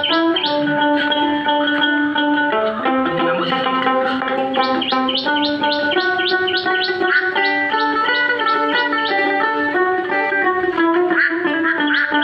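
Dotara, the Bengali plucked long-necked folk lute, playing a fast folk tune: stretches of quick repeated plucked notes, about four a second, over a held lower note.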